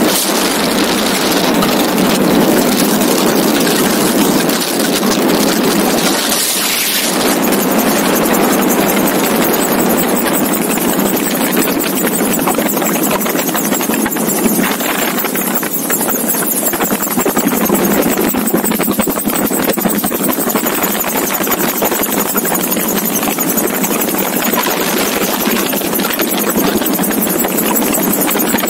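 Magni M16 gyroplane in flight, heard from the open cockpit: a steady mix of engine and wind noise, with a brief louder rush about six seconds in.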